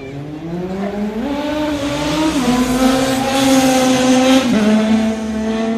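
Motorcycle engine revving hard as the bike accelerates toward and past, its pitch climbing and then dropping sharply about two and a half and four and a half seconds in. It grows louder, peaking around four seconds in.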